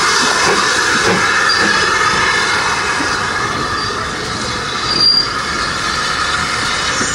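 GWR Manor class 4-6-0 steam locomotive moving off, its steam and exhaust making a loud, steady rushing hiss, with a brief high squeal about five seconds in.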